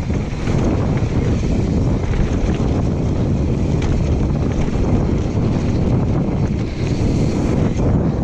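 Wind buffeting the action camera's microphone as a mountain bike rolls fast down a dirt trail, mixed with the rumble of the tyres on the dirt and a few small clatters from the bike over rough ground.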